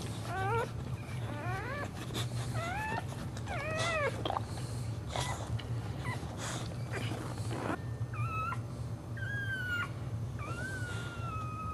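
Dog whining in a string of short, high-pitched calls that rise in pitch, then in longer, steadier whines near the end, with rustling on the cushions between them and a steady low hum underneath.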